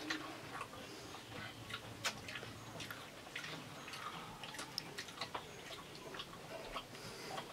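Faint, irregular small clicks and crackles of crisp pani puri shells being handled on plates and eaten.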